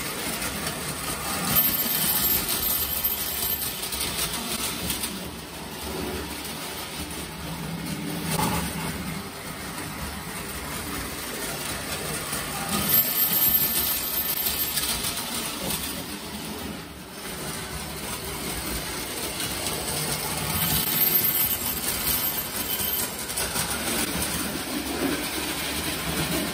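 Prewar Lionel tinplate toy train running on three-rail track: a steady rumble and clatter of metal wheels, swelling in loudness several times as cars pass close by.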